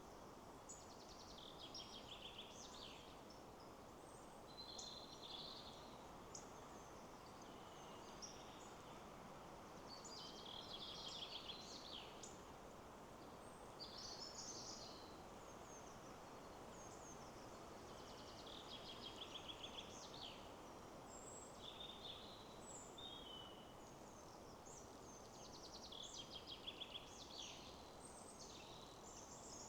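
Faint, steady rush of wind in the trees, with small birds singing and calling over it in short phrases and quick trills every second or two.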